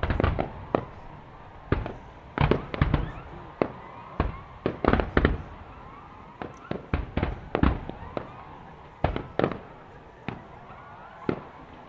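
Fireworks display: aerial shells bursting with sharp bangs at irregular intervals, some in quick clusters of several, each bang trailing off in echo.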